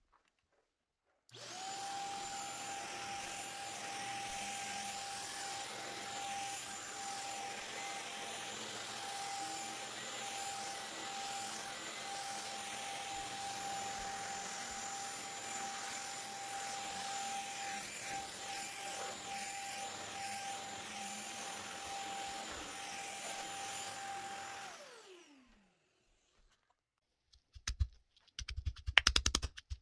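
Stick vacuum cleaner switched on about a second in, running with a steady whine over its suction noise, then switched off and spinning down with a falling whine. Near the end, a quick run of loud knocks from a stone pestle pounding in a mortar.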